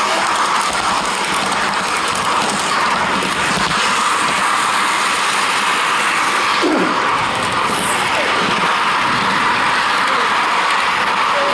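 HO-gauge model train wagon wheels rolling along the track, picked up by a camera riding on the wagon itself: a loud, steady rolling whir.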